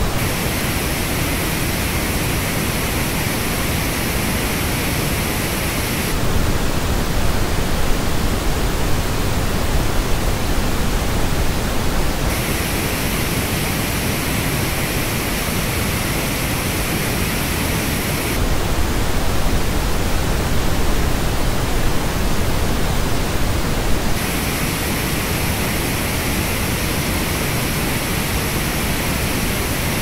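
Pink noise test signal, switching about every six seconds between the flat original noise and the same noise reproduced through Grado SR325X open-back headphones. The headphone version sounds brighter, with strong peaks in the treble.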